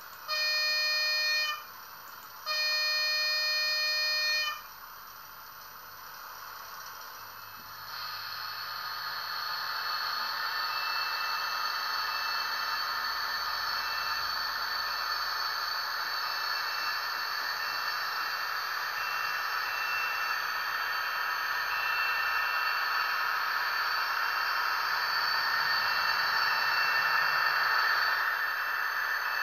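Sound decoder of a Trix HO-scale DB class 218 diesel locomotive model sounding its horn twice, the second blast longer. Then the model's diesel engine sound comes in and grows steadily louder as the locomotive starts off and runs along the track.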